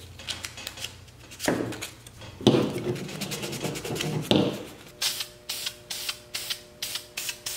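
3D-printed plastic handle parts rubbing and knocking together as they are fitted by hand. From about five seconds in, an aerosol spray can is shaken, its mixing ball rattling in short sharp strokes about three times a second.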